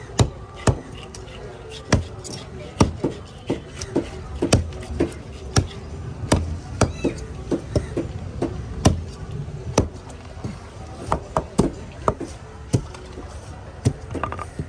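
Heavy curved fish-cutting knife chopping through fish flesh and bone into a wooden cutting board: a string of sharp, irregular thwacks, one or two a second, with quicker lighter taps between.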